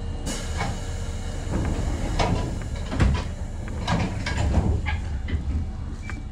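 A Kotoden electric train standing at a platform, heard from the cab: a steady low hum with a series of knocks and clunks, the loudest about three seconds in.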